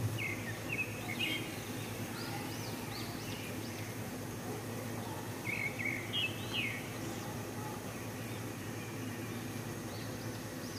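Egg-dipped bread slices frying in hot oil with a steady sizzle. Small birds chirp in short bursts over it, a few times near the start and again around the middle.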